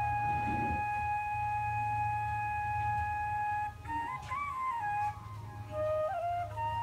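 Slow instrumental music: a single wind instrument holds one long note for about four seconds, plays a short ornamented phrase, then settles on another long, slightly higher note, over a low steady hum.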